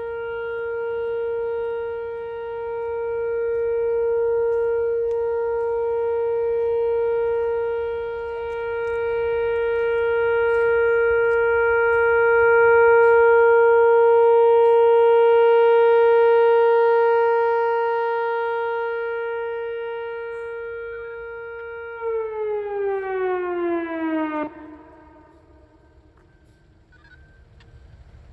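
Whelen WPS 4004 electronic outdoor warning siren sounding a steady 465 Hz alert tone on test, its loudness slowly swelling and fading. Near the end the tone glides down in pitch and cuts off abruptly.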